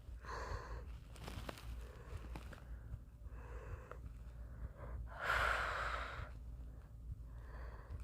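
A person breathing close to the microphone: four soft breaths, the longest and loudest a little past halfway, over a faint low hum.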